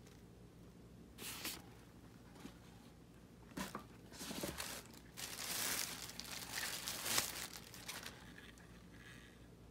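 Clear plastic packaging crinkling and rustling as it is handled, in several bursts starting about a second in. It is loudest in the middle, with one sharp crackle near the end.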